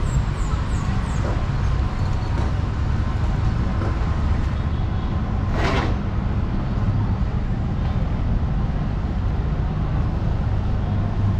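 Street traffic: a steady low rumble of vehicle engines, with a short hiss about six seconds in.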